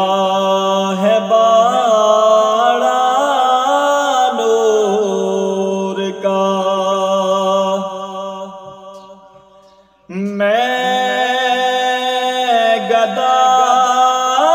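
A man singing a naat, a devotional Urdu poem, without instruments, in long melismatic held notes over a steady low drone. The voice fades away toward ten seconds in and then comes back in loudly just after.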